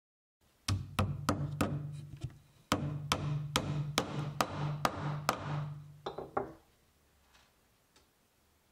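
Upholsterer's tack hammer driving tacks through jute webbing into a wooden chair frame: a run of about fourteen sharp taps, two to three a second, with a short break about two seconds in and a quick final flurry before they stop.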